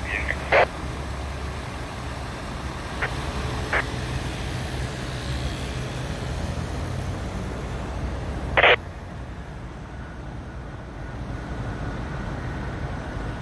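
Fire engine and ambulance engines idling with a steady low rumble. Short, sharp, loud bursts cut through it about half a second in and again near nine seconds, with two fainter ones between three and four seconds.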